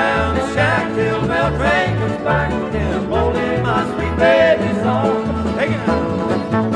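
Country band playing an instrumental break: a bass bouncing between notes about twice a second under sliding, bending lead lines.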